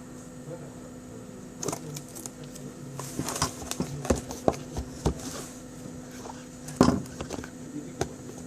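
Handling noises from unboxing a phone: scattered taps, clicks and short rustles of the box, packaging and phone being handled, with the loudest knock near the end.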